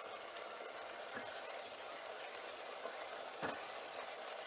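Thick tomato-and-vegetable pasta sauce sizzling in a saucepan as it is stirred with a spoon: a steady hiss, with a couple of light knocks about a second in and near the end.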